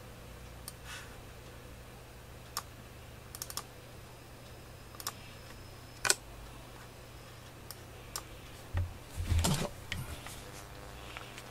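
Computer keyboard keys clicking in scattered single taps, about a second apart. A louder cluster of clicks and low thumps comes about nine seconds in.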